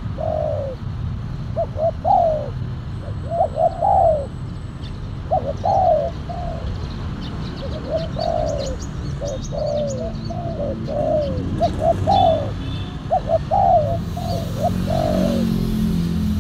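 Spotted dove cooing: a long run of short, falling coos in quick groups of two to four, one group after another.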